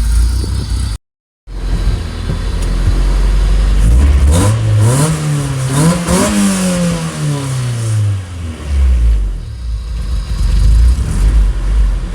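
Honda B20 inline-four in an EK Civic with a Yonaka exhaust idling, then revved up over about two seconds and let fall back to idle. The exhaust is still loud, which the owner takes for an exhaust leak somewhere in the system.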